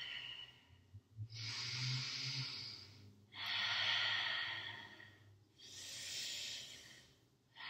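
A woman's audible, steady breathing during a yoga pose: three long breaths of about two seconds each, with short pauses between them.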